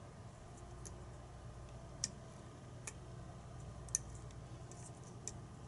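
Faint, irregular metallic clicks of a steel hook pick working the pins inside a lock cylinder during lock picking, about six over a few seconds, over a steady low hum.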